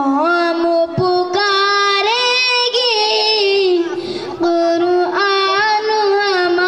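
A boy singing solo into a stage microphone with no accompaniment, holding long, wavering notes with short breaths between phrases.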